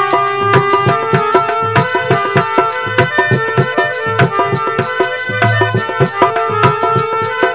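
Instrumental interlude of a devotional bhajan, with no singing: a melody instrument holding long notes over brisk, steady drum strokes.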